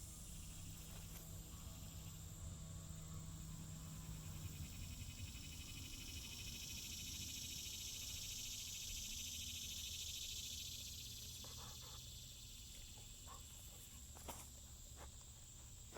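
A chorus of insects such as crickets trilling steadily at a high pitch, swelling in the middle and easing off later. A few light clicks come near the end.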